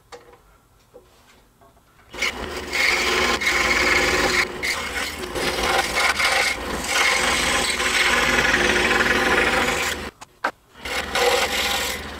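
Scroll saw with a number 7 reverse-tooth blade cutting 3/4-inch poplar: it starts about two seconds in and runs steadily with the blade sawing through the wood, stops for a moment near the end, then starts cutting again.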